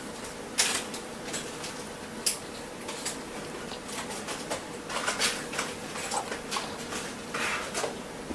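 A baby hiccuping: two sharp hiccups under two seconds apart near the start, then a run of smaller clicks and soft noises.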